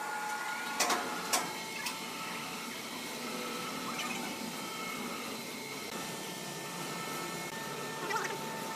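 Sawmill machinery running steadily: an even hum with a constant high whine, and a few sharp wooden knocks about a second in and again near the end.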